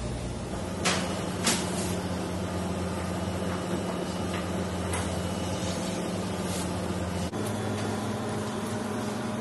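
Steady low hum of commercial kitchen machinery, with two sharp knocks about a second in and half a second later. The hum shifts slightly in pitch about seven seconds in.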